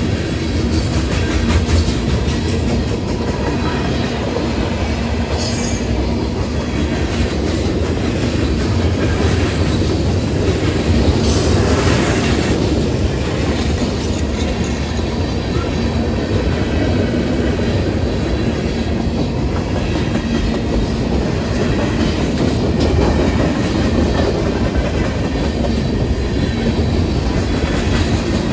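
Freight train of tank cars and covered hoppers rolling steadily past, steel wheels rumbling and clacking over the rails.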